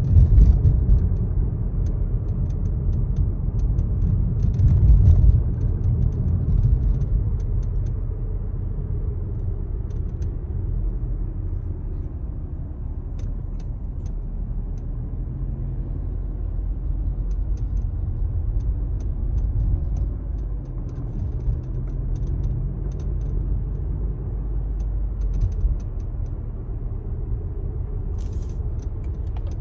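Inside a moving Mazda 3 (BP): a steady low rumble of road noise, with irregular short cracks and rattles from the dashboard trim scattered through it.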